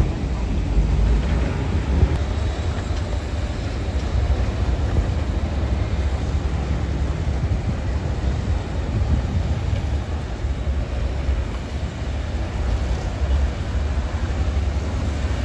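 Heavy diesel earthmoving machinery running steadily: a continuous low engine rumble with small swells in loudness and no clear change in pitch.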